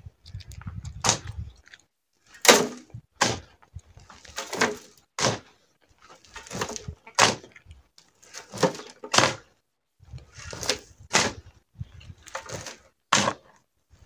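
Shovel digging into a pile of sandy, stony soil and tipping the loads into a wheelbarrow: short sharp scrapes come in pairs, about one pair every two seconds.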